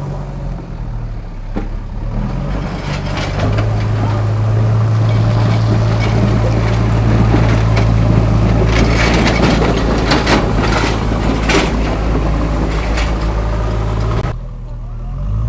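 A motor vehicle's engine running steadily under a dense crackling, crunching noise with scattered sharp clicks, which grows louder toward the middle. It all cuts off suddenly near the end.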